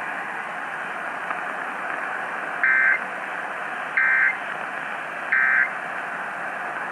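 EAS end-of-message signal (SAME 'NNNN'): three short bursts of two-tone data warble, about a second and a third apart, received over AM radio through a steady static hiss. It marks the end of the emergency alert test.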